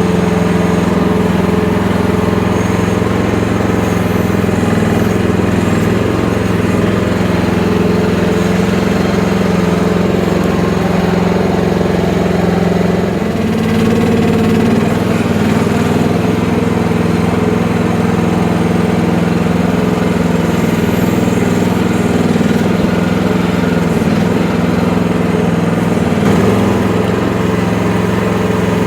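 Engine of an FF12 mini excavator running steadily while it digs, with small shifts in its pitch now and then.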